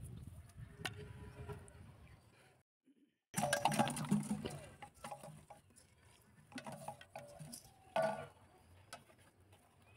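Plastic bottles and bamboo sticks being set down into a steel bowl, clattering and clinking against the metal, with a sharper knock about eight seconds in. The sound cuts out briefly about three seconds in.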